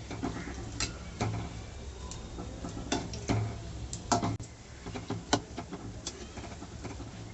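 A utensil clicking and tapping against a pan of hot oil, about a dozen irregular light knocks, while frying cake pieces are turned over.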